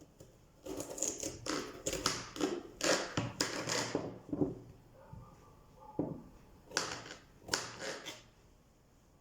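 Kitchen knife chopping vegetables into cubes on a cutting board: a quick run of sharp knocks lasting about three seconds, then a few more knocks near the end.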